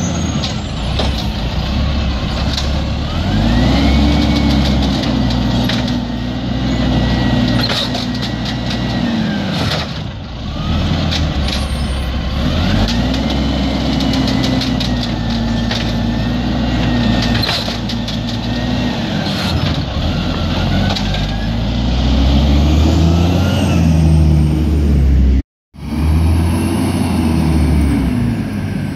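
Peterbilt 320 garbage truck with an Amrep automated side loader, its engine revving up, holding and dropping back several times to drive the hydraulics as the arm lifts and dumps carts. A whine rises and falls with each rev, over clattering of carts and garbage. The sound cuts out for a moment near the end.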